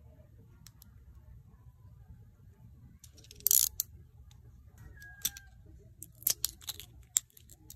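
Small gel polish bottles handled in the fingers: a short rustling scrape about halfway in, then a quick run of sharp clicks as long fingernails tap against a bottle and its cap near the end.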